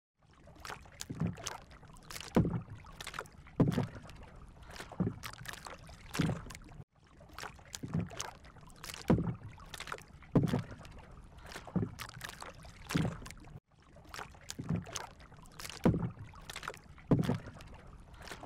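Rowing strokes in water: a splash of the blade about every second and a quarter, in a steady rhythm that breaks off briefly twice.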